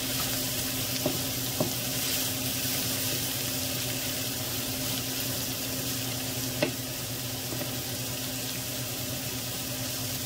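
Diced onion, celery, carrot and bell peppers sizzling steadily in vegetable oil in a skillet as they are stirred with a wooden spoon, with a few light knocks of the spoon against the pan.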